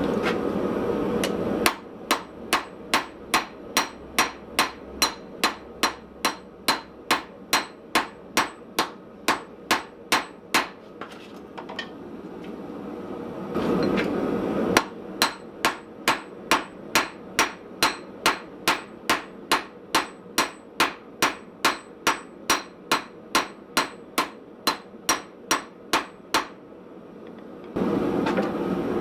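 Blacksmith's hammer striking hot steel on a small Austrian/German pattern anvil in steady, ringing blows, about two to three a second, as a knife blank is forged. The blows come in two long runs, with a short stretch of steady rushing noise between them and again near the end.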